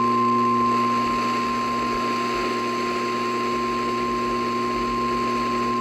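NOAA Weather Radio 1050 Hz warning alarm tone: one steady, unbroken beep held over radio static and a low hum. It is the alarm that signals a warning-level alert about to be read.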